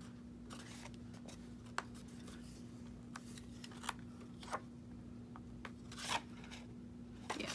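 Cardstock and vellum tags being handled, with scattered light clicks and taps about a second apart, over a steady low hum.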